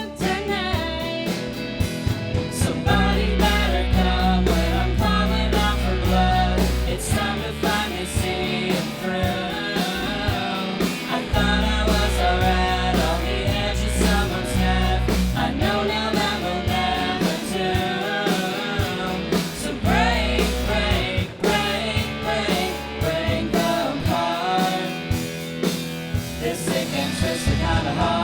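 Rock band playing live: electric guitar, bass and drum kit, with a singer.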